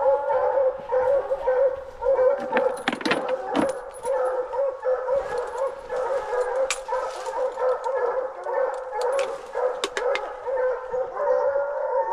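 Several coonhounds baying, their barks overlapping in a steady run without a pause. A few sharp knocks cut in, around 3 seconds in and again near 10 seconds.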